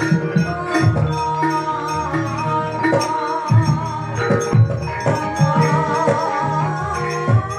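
Javanese gamelan ensemble playing. Bronze kettle gongs and metallophones are struck in a steady flow over deep ringing hanging gongs, with a wavering melody line above from about halfway through.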